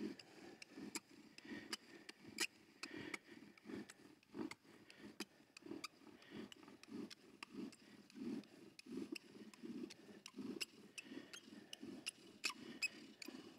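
Bow drill spindle spinning back and forth in a wooden fireboard, a faint rhythmic grinding about two strokes a second with light clicks. The spindle is starting to engage and warm the board.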